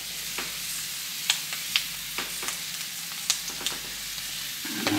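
Meat and onion frying in butter in a pan, sizzling steadily, with a few sharp clicks scattered through.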